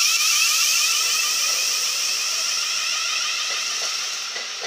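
Siemens Class 700 electric multiple unit pulling away, its traction motors giving a whine of stepped tones that keep rising in pitch and fade near the end.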